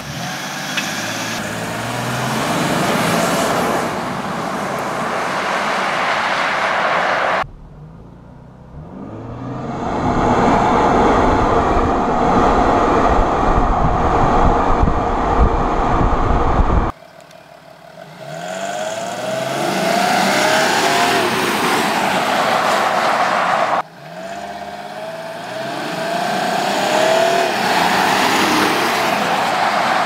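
2016 Audi Q7 3.0 TDI's V6 diesel accelerating hard in several separate runs, its engine note rising and dropping back at each upshift. In the middle stretch, heavy wind and road rumble on a microphone fixed to the back of the moving car.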